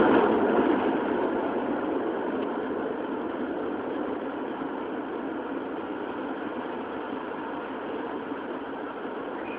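Running noise of a Toei 10-000 series subway train, heard inside the car: wheels and track rumble. It falls off over the first few seconds as the train passes from the tunnel into a station, then stays steady.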